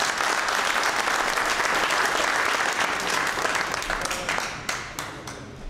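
Audience applauding, the clapping thinning out about four and a half seconds in.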